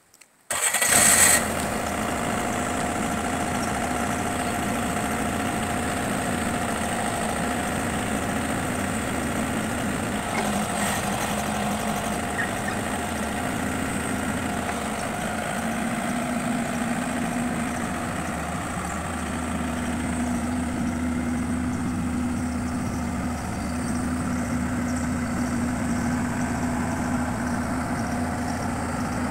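Bobcat 331 mini excavator's diesel engine starting about half a second in, then running steadily.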